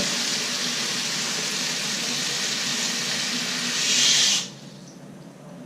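Toilet tank refilling through a newly fitted Fluidmaster fill valve, a steady hiss of water that swells briefly and then cuts off sharply about four and a half seconds in as the valve shuts off.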